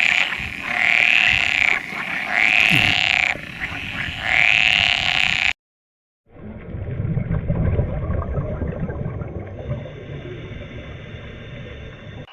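An animal calling four times in a row, each call drawn out for about a second and rising then falling in pitch. After a short break, a different low, rough animal sound follows.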